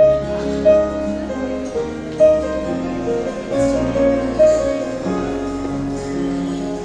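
Live band playing the instrumental intro of a slow R&B ballad: keyboard with guitars and bass, no vocals yet.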